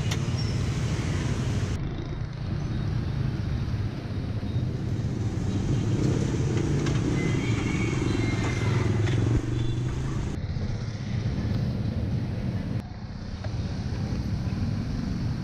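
Street traffic, mostly motorbike engines, making a steady low rumble that swells somewhat about halfway through.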